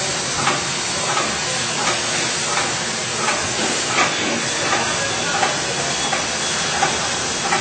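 All-Fill Model 1545 piston filler and bottle conveyor running: a steady hiss with a short click at an even beat, about three every two seconds.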